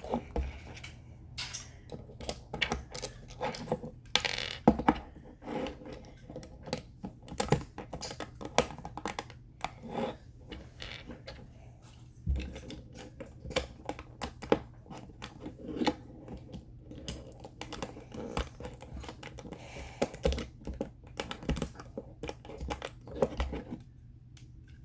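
Plastic Lego bricks clicking and clattering as they are sorted, handled and snapped together, in many irregular sharp clicks.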